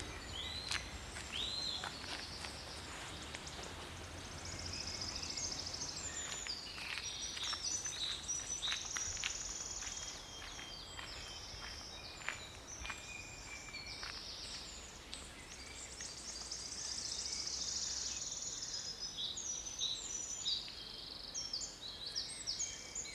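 Several songbirds singing and chirping, with rapid trills and short rising and falling notes, over a faint low rumble that fades out near the end.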